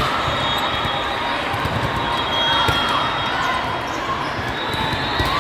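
Sports-hall hubbub during indoor volleyball play: many voices chattering, sneakers squeaking on the court floor and the odd thud of a ball being played, echoing in a large hall.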